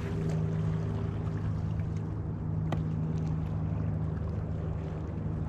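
A boat motor running steadily with a low, even hum. One sharp click about two and a half seconds in.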